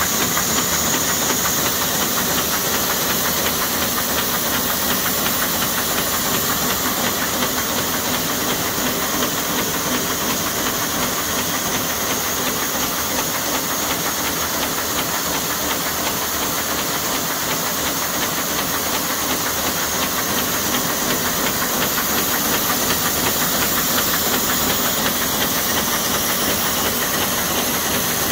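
Buhrs BB700 envelope inserting machine running on test: a steady mechanical clatter of rapid fine ticks under a constant hiss.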